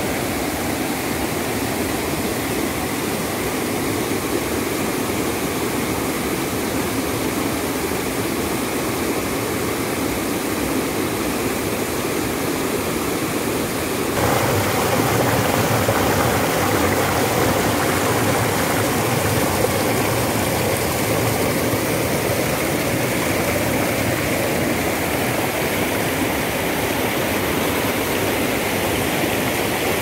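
Rushing white water of a rocky stream cascading over boulders, a steady even rush. About fourteen seconds in it turns suddenly louder and fuller, as from close beside a rapid.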